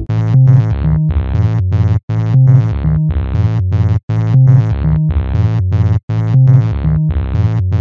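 Background electronic music: sustained synthesizer chords over a bass line, without drums, falling briefly silent between phrases about every two seconds.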